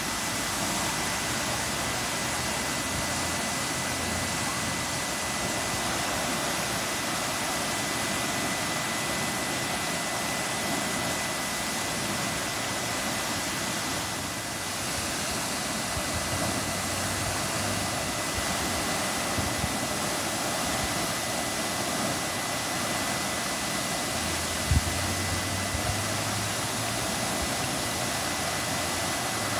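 Water jetting high out of a broken water line at the roadside and spilling across the pavement: a steady rushing hiss that does not change, with one short thump near the end.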